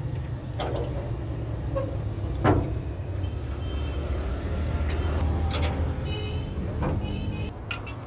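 Scattered metal clicks and knocks of hand work on the truck's frame and brake fittings, with one sharp knock about two and a half seconds in. A steady low vehicle rumble runs underneath, with a few short high squeaks.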